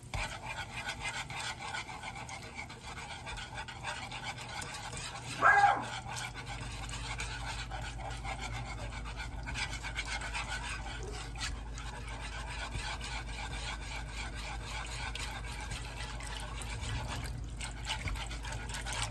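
Wire whisk beating a roux in a nonstick pot as milk is slowly poured in: a steady, fast scraping and swishing. About five and a half seconds in, a brief, loud pitched whine sounds over it.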